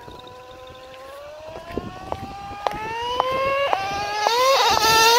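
Traxxas Revo 3.3 nitro RC monster truck's two-stroke glow engine running at high revs, its pitch rising and its sound growing louder as the truck speeds toward the camera.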